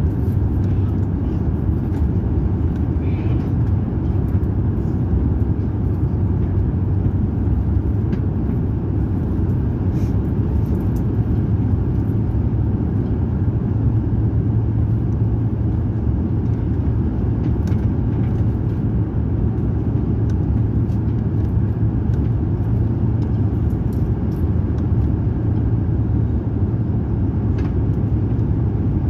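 Steady cabin noise inside an Airbus A350-900 descending to land: an even low roar of airflow and its Rolls-Royce Trent XWB engines.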